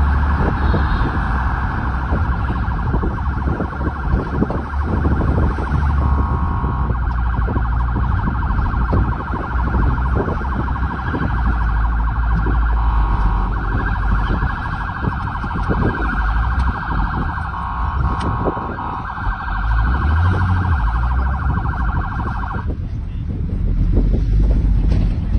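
Ambulance's electronic siren warbling rapidly, heard from inside the cab, changing its pattern a couple of times and cutting off suddenly near the end. Engine and road rumble run underneath.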